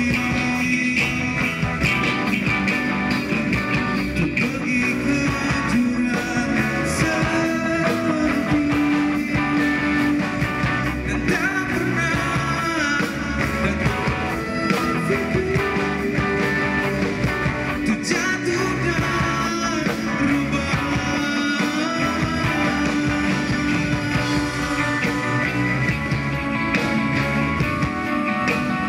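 Live rock band playing: distorted electric guitars, bass, drums and keyboard, with a male vocalist singing over them.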